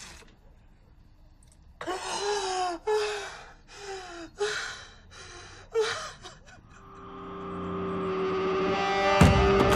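A person sobbing in distress: about six gasping, breaking cries, each falling in pitch, over a few seconds. Then tense score music swells up steadily and turns loud near the end.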